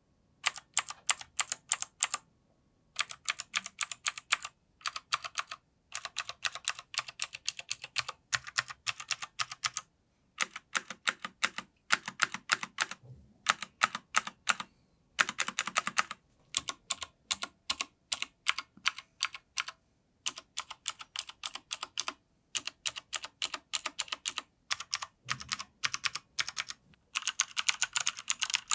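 Cherry MX Board 1.0 TKL RGB mechanical keyboard with clicky Cherry MX Blue switches being typed on in a sound test: rapid runs of sharp key clicks in bursts of a second or two, broken by short pauses.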